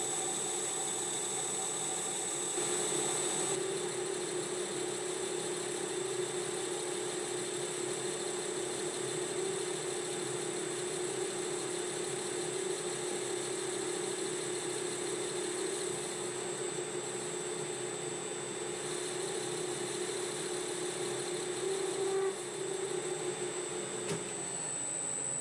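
Metal lathe running under power and turning down a round bar: a steady machine whine and hum as the tool cuts and throws off curly swarf. The low hum fades out near the end.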